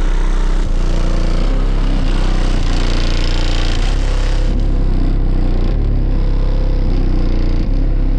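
Car audio system playing a hip-hop track loud, its two Skar VxF 15-inch subwoofers pushing deep bass notes that change about once a second. The bass overloads the recording, which makes it sound rough and distorted.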